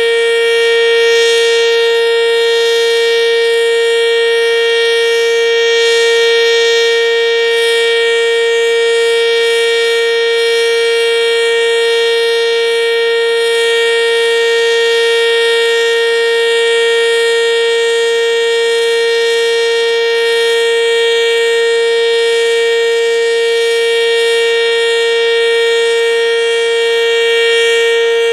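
ASC OM-117 outdoor warning siren sounding a loud, steady tone at constant pitch, with no rise or fall.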